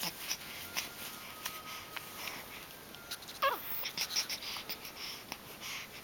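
Baby's soft breathy noises with scattered small clicks, and one short squeaky vocal sound that falls in pitch about three and a half seconds in.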